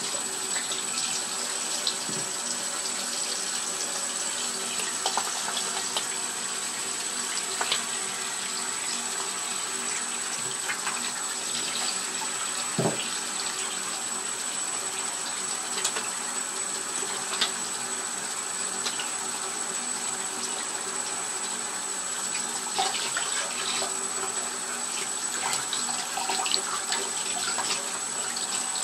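Water running steadily and splashing, with small irregular splashes and drips popping out of the steady flow.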